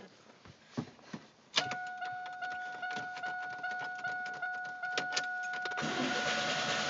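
Car interior sounds: a few sharp clicks, then a steady electronic warning tone that starts about a second and a half in and holds, with light clicking over it. A steady rushing noise rises near the end.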